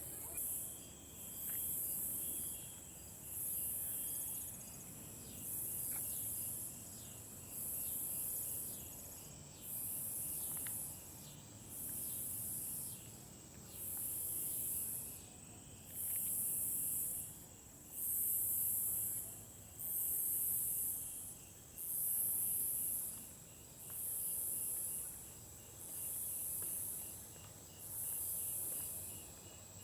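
Insects in a summer evening chorus. A very high-pitched buzz pulses about once every two seconds, over a faint, steady chirping of crickets.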